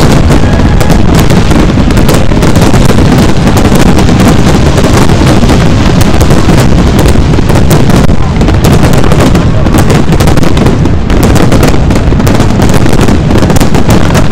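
Dense fireworks barrage: rapid, overlapping bangs and crackling with no break, very loud throughout.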